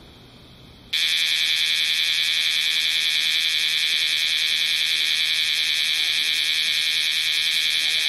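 Kumazemi (bear cicada) singing: a loud, steady, rapidly pulsing buzz that cuts in abruptly about a second in.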